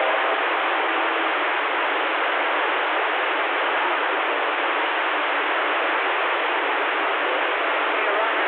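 Steady static hiss of band noise from a CB radio's speaker, with no station coming through between transmissions.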